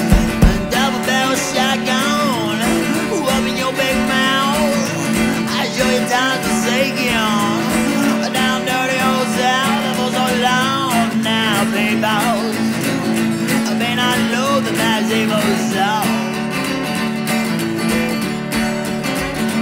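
Blues band music: guitar strumming under a lead line that bends and wavers in pitch, with a steady held low note underneath.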